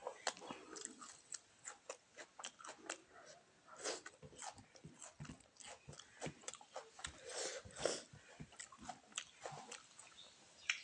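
A person chewing and biting food close to the microphone: an irregular run of small crunches and wet mouth clicks and smacks.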